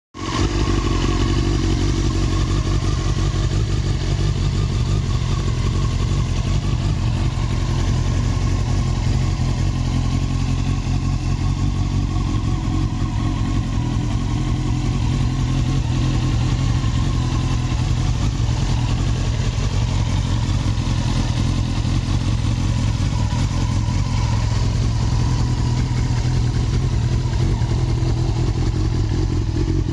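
Honda CBR900RR Fireblade's inline-four engine idling steadily, with no revving.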